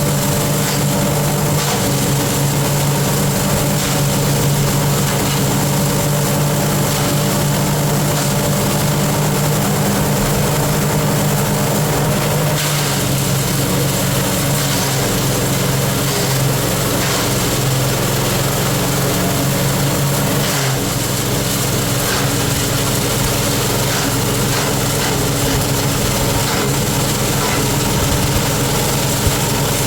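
Engine of a livestock-feed chopper machine running steadily, its pitch dropping slightly about twelve seconds in.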